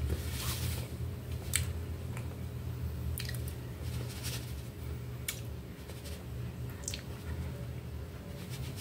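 Cassava flour being shaken out of a plastic shaker container onto a plate of food: a soft sprinkling rustle with scattered light clicks and taps from the container, over a steady low hum.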